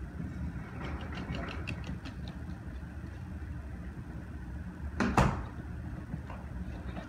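A dog's claws clicking on a hardwood floor in a quick run of taps over a steady low hum, then one sharp thump about five seconds in, the loudest sound.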